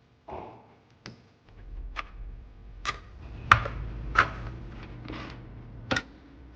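Sharp plastic clicks and taps, about one a second, from an Epomaker SK64 mechanical keyboard being worked on by hand during a switch and stabiliser mod. The two loudest come about halfway through. A low handling rumble sits underneath from about a second and a half in.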